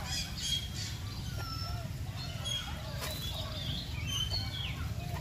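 Several birds chirping and whistling in short overlapping calls, some sliding in pitch, over a steady low rumble.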